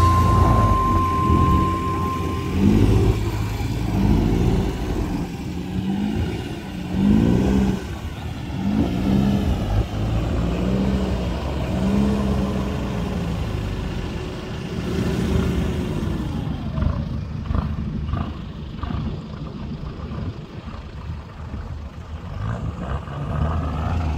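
4x4 pickup engine revved again and again in deep soft sand, the pitch rising and falling about once a second as the truck works through the sand. Near the middle it gives one longer rev up and down, then drops back to a lower, uneven rumble.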